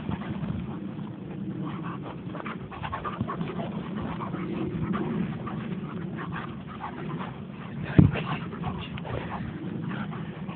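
A young German Shepherd's excited breathing and small vocal noises as it noses and rolls through dry grass, with a sharp thump about eight seconds in.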